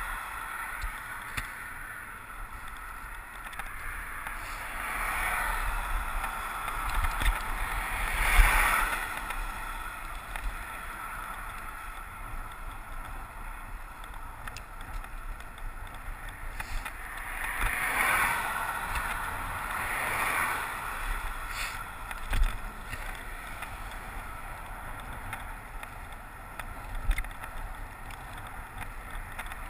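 Steady wind rumble on the microphone and road noise from riding a bicycle along the road edge, swelling several times as vehicles pass, loudest about eight seconds in.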